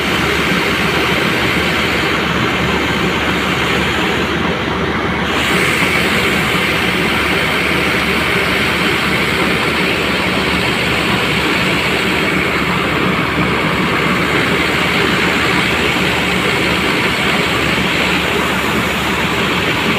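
Combine harvester running while its unloading auger pours threshed paddy into a steel tractor trolley. The sound is a loud, steady machine drone mixed with the hiss of falling grain, and the hiss grows stronger about five seconds in.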